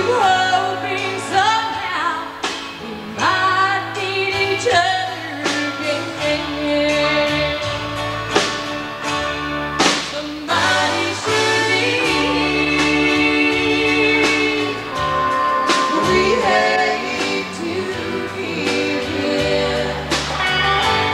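A song with a lead singer, backed by guitar, bass and drums; the singing slides between held notes over a bass line that steps from note to note.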